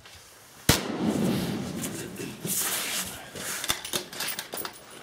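A single precision rifle shot about a second in, its report carrying on across the range for a couple of seconds, followed by a few sharp clicks near the end.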